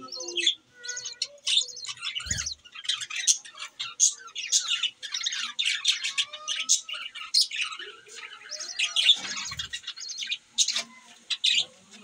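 A flock of budgerigars chattering, many short high chirps and squawks overlapping without a pause.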